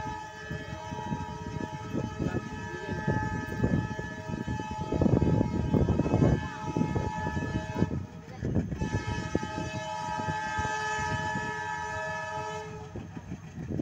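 Diesel locomotive's multi-tone air horn sounding two long blasts with a short break about eight seconds in, over the low rumble of the approaching train. The horn stops near the end.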